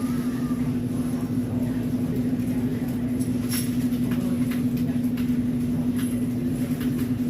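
A steady low mechanical hum with one constant tone, and a few faint clicks over it.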